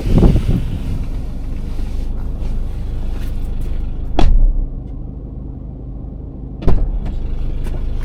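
Vehicle engine idling under heavy wind buffeting, with two loud knocks about four and seven seconds in.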